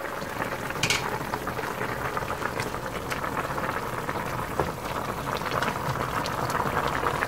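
Chicken and green papaya broth boiling hard in a pot, bubbling and crackling steadily, with a few light knocks.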